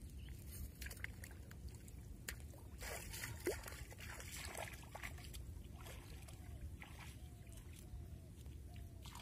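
Light splashing and trickling of shallow water over a steady low rumble, with scattered small clicks and a few short, faint chirps in the second half.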